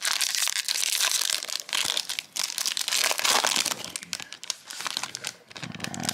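Trading-card pack wrapper crinkling as it is handled and torn open: a dense crackle that eases off after about four seconds.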